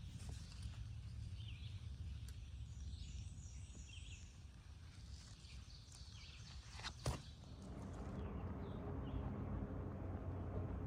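Outdoor ambience: faint bird chirps over a low wind rumble, with one sharp click about seven seconds in, after which a steadier hiss takes over.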